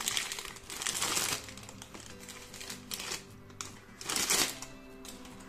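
Thin plastic bag crinkling in several short bursts as it is pulled open and off a part by hand, loudest near the start and again about four seconds in.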